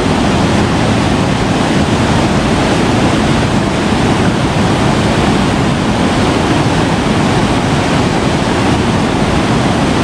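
Loud, steady rush of river water pouring over a weir and churning into white water below.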